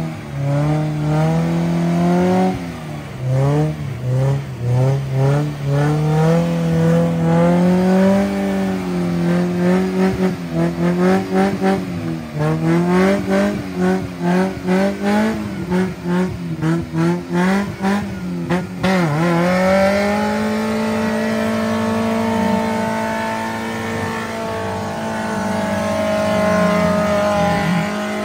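Off-road 4x4's engine revving hard over and over, its pitch rising and dropping with quick throttle stabs, then holding a steady high rev from about two-thirds of the way in.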